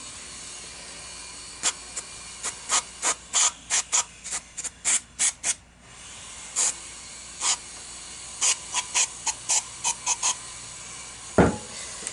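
Aerosol motor cleaner (Dynamite Magnum Force 2) sprayed through its extension straw into an open brushless motor can in many short, quick bursts, in two runs with a short pause between them. A single thump near the end.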